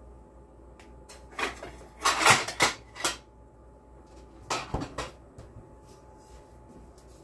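Kitchen cookware and a cupboard being rummaged for a pan lid: a run of knocks and clatters lasting about a second and a half, then a shorter clatter a couple of seconds later.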